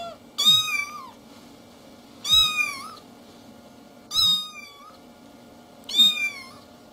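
Cream-and-ginger cat meowing four times as it is poked awake: short, high meows of about half a second each, spaced about two seconds apart.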